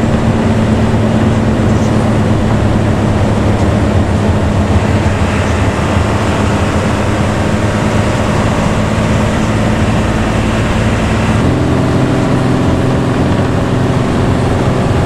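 Intercity bus diesel engine running under way through its growling modified exhaust ('knalpot ngorok'), a steady low drone. Its pitch sags slowly, then steps up suddenly about eleven seconds in.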